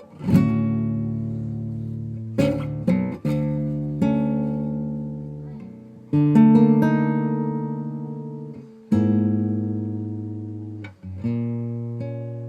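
Acoustic guitar music: slow chords strummed about every one to three seconds, each left to ring and fade.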